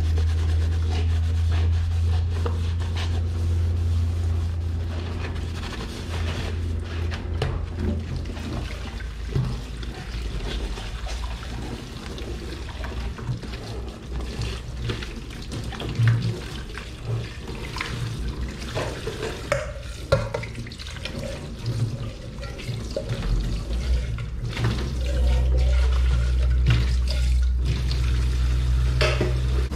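Kitchen tap running into a sink while dishes are washed. The water runs strongly at the start and again near the end, with scattered clinks and knocks of dishes in between.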